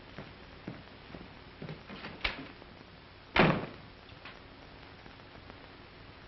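A few light clicks and knocks, then a door shutting with a solid thud about three and a half seconds in.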